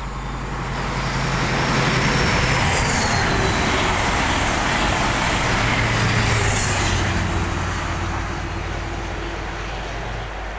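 An InterCity 125 High Speed Train, with Class 43 diesel power cars at each end, passing at speed. The rumble of engines and wheels on rail swells to a peak and fades away, and the engine note drops in pitch as the train goes by.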